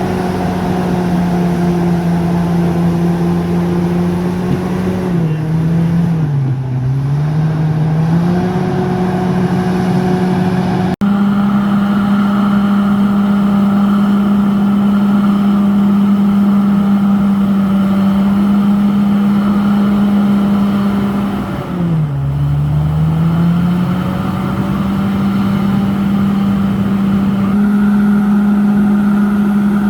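Komatsu D68ESS bulldozer's diesel engine running hard at steady high revs, its pitch sagging twice as it lugs under load and then picking back up.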